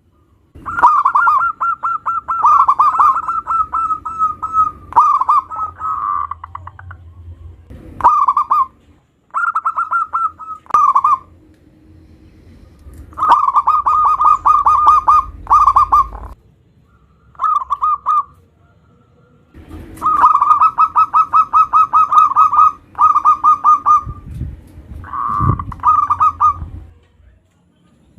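Zebra dove (perkutut) cooing: about seven phrases of rapid staccato notes, with short pauses between them.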